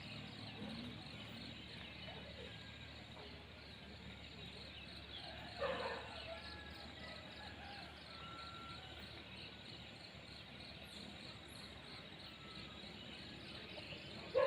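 Rural outdoor ambience: insects chirping steadily in a fast, even pulse over a soft background hiss, with one short louder call about six seconds in.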